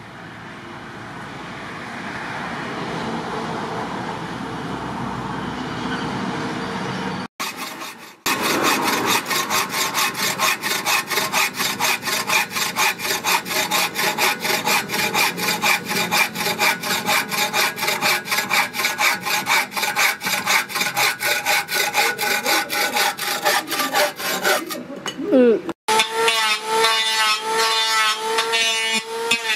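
Wood being hand-sawn with a hacksaw blade in quick, even back-and-forth strokes. Near the end an electric hand planer starts running, its motor whine dipping in pitch as it cuts the wood. Before the sawing there is a rising hiss.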